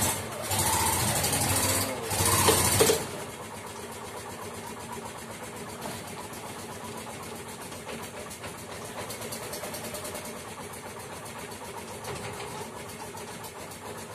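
Bajaj RE three-wheeler engine running, with two loud surges in the first three seconds, then idling steadily.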